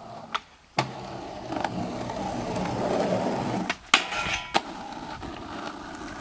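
Skateboard tricks. A sharp knock starts a long scraping grind along a concrete ledge that grows louder. Then a second sharp impact and a brief ringing grind on a metal flat bar end in a landing knock, followed by the urethane wheels rolling on asphalt.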